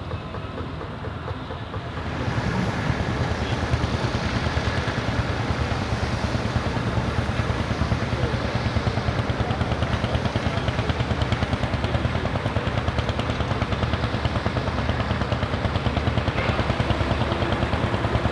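Deutz F3L514/51 tractor's air-cooled three-cylinder diesel running with an even, rapid beat. It gets louder about two seconds in and then holds steady.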